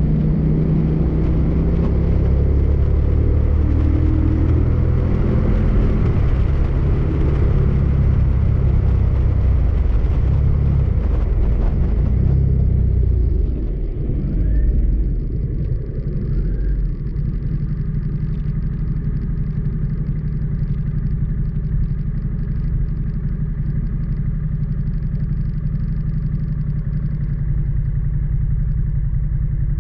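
Motorcycle engine running at road speed under a heavy rush of wind and road noise; about halfway through the rush eases, leaving a steadier low engine note.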